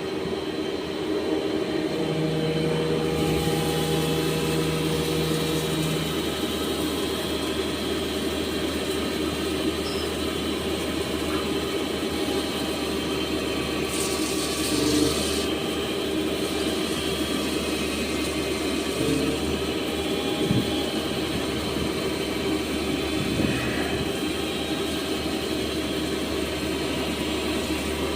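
CNC lathe running: a steady machine hum with several held tones, and a brief hiss about halfway through.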